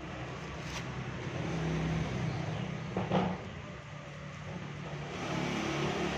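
Steady low rumble and hiss of background noise, with a brief click under a second in and a short, louder sound about three seconds in.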